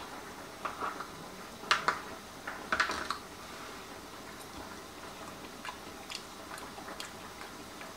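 A metal fork clicks a few times against cookware while a piece of cooked asparagus is picked up, followed by faint chewing.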